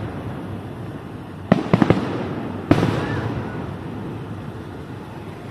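Fireworks bursting: a quick cluster of about four sharp bangs about a second and a half in, then a single strong bang about a second later, each trailing off in a long fading echo.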